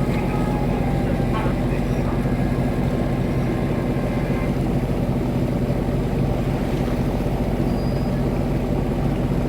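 Steady low drone of a ship's engine, a constant hum with a few steady low tones and no change in pitch or level.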